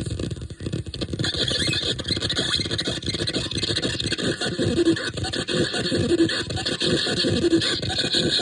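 A strange sound machine giving a dense, scraping, squealing noise made of close-packed irregular strokes. From about five seconds in, a short low tone recurs about every second and a half.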